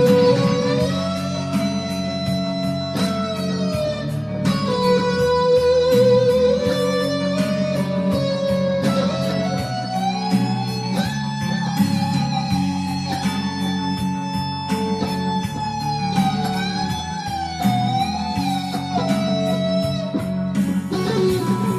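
Guitar music: a slow lead melody of long held notes that bend and waver with vibrato, over a steady chord backing.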